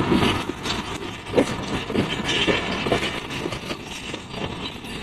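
Awam Express passenger coaches rolling past on the adjacent track: a steady rumble of wheels on rails, broken by irregular clacks as the wheels cross rail joints, a little louder at the start.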